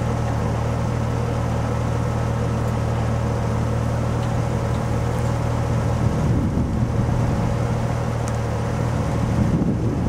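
Off-road vehicle engine running at a steady idle, an even low drone with no revving; from about six seconds in, rough rumbling noise over it, like wind on the microphone.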